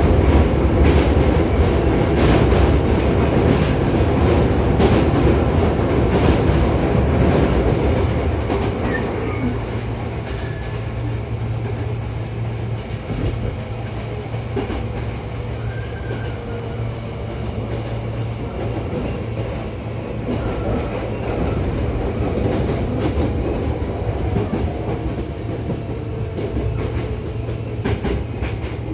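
Hankyu 8000-series commuter train running, heard from inside the car: wheels rumbling with clicks over rail joints. About eight seconds in it eases to a quieter run with a steady low hum.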